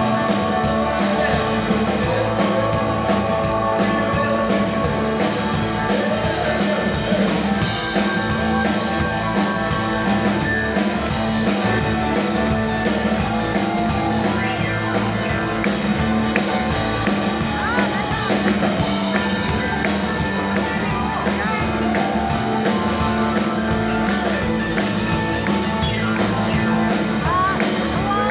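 Live rock and roll band playing at full volume: guitars and a drum kit with an even, steady beat, heard through the room from in front of the stage.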